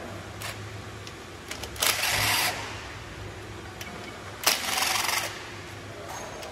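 Cordless drill-driver run in two short bursts, each under a second, about two and four and a half seconds in, driving bolts on the engine, with a few small clicks of handling in between.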